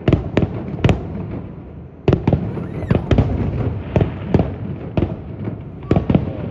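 Fireworks display: aerial shells bursting in quick succession, a loud bang every half second or so, each rumbling on in echo, over a steady crackle.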